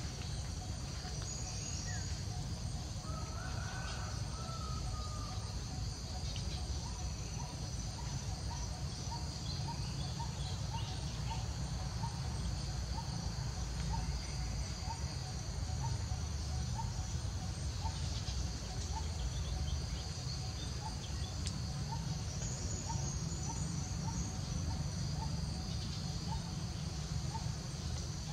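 Outdoor ambience of insects droning steadily at a high pitch over a low rumble. A short warbling call comes a few seconds in, and a faint short call repeats a little more than once a second through the middle.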